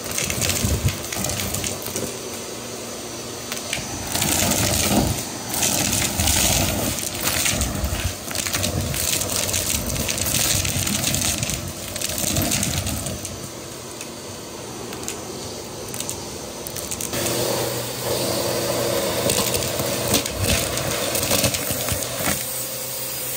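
Vacuum cleaner running as its nozzle sucks up small hard trinkets (buttons, beads, coins, game tiles), which rattle and clatter up the tube in dense clicks. About three-quarters of the way through the clatter thins and the motor's steady hum comes through more plainly.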